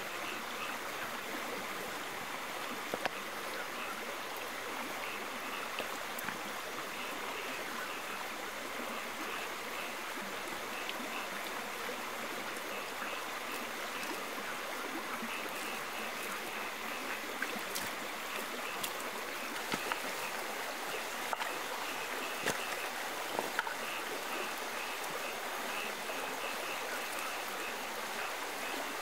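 Stream water running steadily, with a faint high chirping that repeats over and over above it and a few sharp clicks in the second half.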